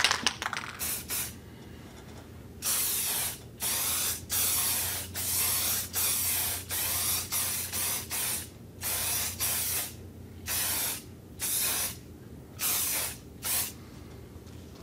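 Aerosol can of satin clear finish spraying in a long run of short hisses, about fifteen quick passes each under a second, with brief gaps between them, stopping shortly before the end.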